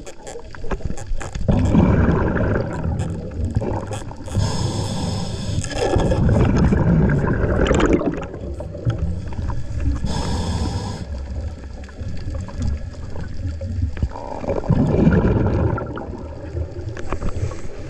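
Scuba diver breathing through a regulator underwater: three hissing inhales about six seconds apart, with exhaled bubbles gurgling in between.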